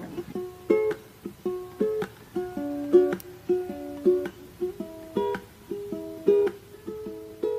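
Background music: a tune of short plucked-string notes in a steady rhythm, each note dying away quickly.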